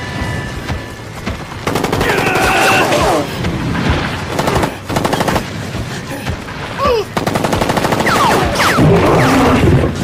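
Automatic gunfire in long, rapid bursts starting about two seconds in, with short breaks between them.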